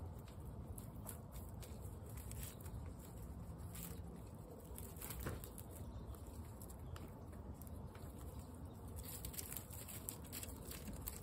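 Guinea pigs rustling and shuffling through straw bedding close to the microphone, with many small crackles and clicks from the straw. A steady patter of rain sits underneath.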